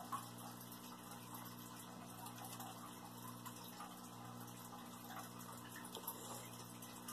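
Quiet room tone: a steady low hum under a faint hiss, with one small click just after the start.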